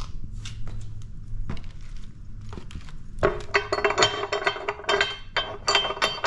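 Hinged metal brackets on a pallet buster's head being swung by hand, clinking and rattling against the tool with a bright metallic ring. A few light clicks come first, then a quick run of clinks from about three seconds in.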